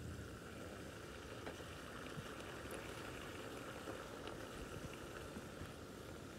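Steady outdoor background noise: a soft, even hiss with a few faint small clicks.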